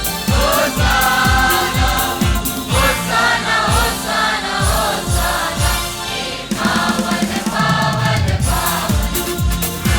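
Hymn sung by several voices over band accompaniment, with a steady drum beat of about two strokes a second.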